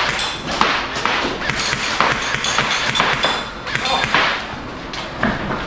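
Airsoft rifle firing a run of single shots, about two a second; some shots are followed by a short high ringing tone.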